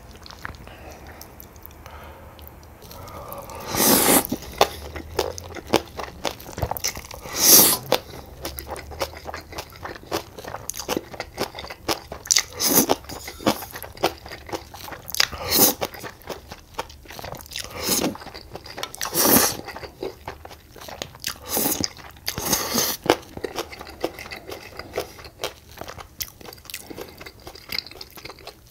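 Close-miked eating: crunchy bites and steady chewing, with about seven louder bites spread through.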